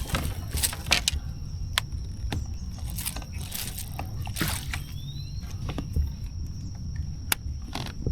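A hooked largemouth bass being landed beside a kayak: scattered splashes and knocks on the water over a steady low rumble.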